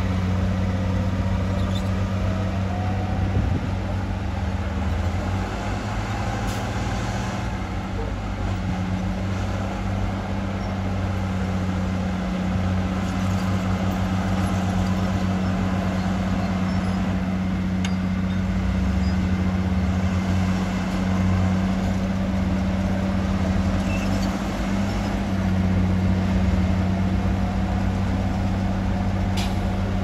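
Heavy earthmoving machine's diesel engine running steadily: an even, low drone that holds its pitch with only slight rises and falls.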